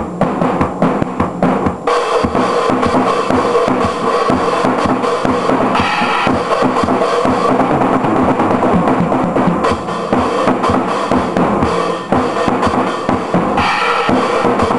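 Drum kit being played: bass drum, snare and cymbals in a steady, busy groove, with a brief break about twelve seconds in.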